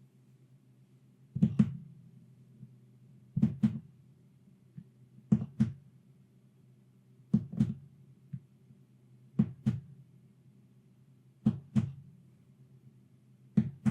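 A low, steady mechanical hum with a pair of heavy knocks repeating about every two seconds, like a machine working in a slow, even beat.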